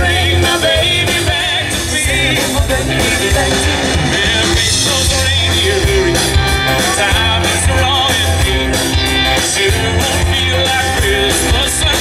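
Live rock-and-roll band playing an upbeat Christmas number, with saxophones, electric guitar and drums over a steady beat.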